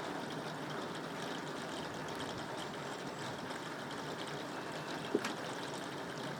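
Steady rainfall, an even hiss of falling water, with a single sharp tap a little past five seconds in.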